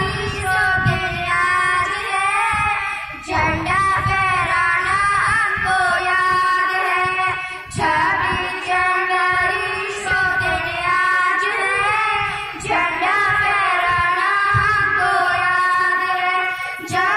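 Two young girls singing a song into handheld microphones, amplified over a loudspeaker system, in long phrases with short breaths every few seconds.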